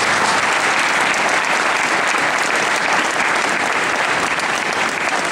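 Audience applauding, many hands clapping at once in a dense, steady wash of claps.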